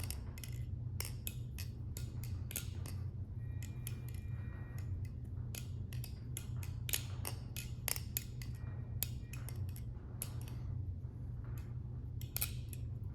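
JW Magnet balisong (butterfly knife) with a harpoon blade being flipped: an irregular run of sharp metal clicks and clacks as the handles swing round and strike the blade and each other, with a faint metallic ring now and then. A steady low hum runs underneath.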